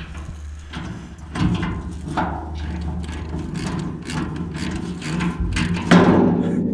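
Ratchet wrench clicking and a socket extension knocking against the vehicle's steel body as a bolt is tightened, with a louder knock about six seconds in. A steady low hum runs underneath.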